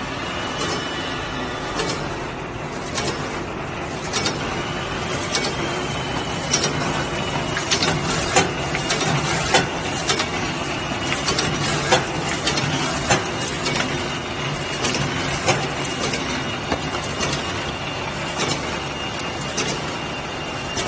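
XY GU 388 automatic facial tissue cube-box packing machine running: a steady mechanical hum with a thin high whine, broken by frequent sharp clacks from its moving parts.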